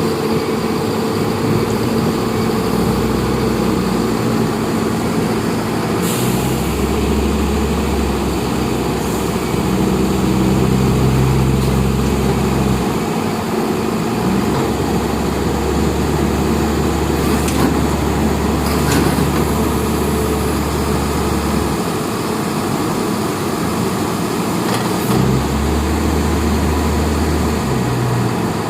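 An engine running steadily, its low rumble swelling and fading several times, with a few short knocks.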